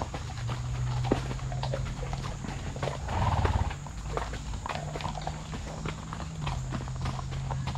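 Horse's hooves clip-clopping at a walk on a dirt and stone trail, in irregular steps. A steady low hum runs underneath, and a brief louder noise comes about three seconds in.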